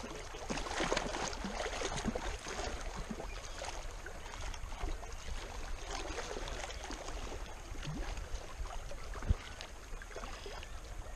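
Small waves lapping and splashing at a rocky lake shore, with wind rumbling on the microphone. A single sharp thump about nine seconds in.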